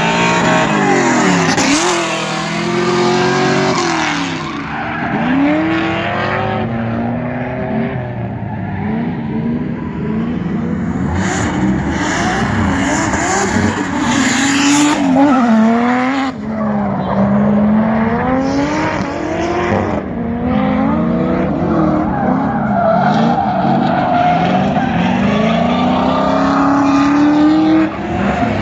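Drift cars' engines revving hard, the pitch climbing and dropping again and again as the cars slide through the course, with tyres squealing and skidding.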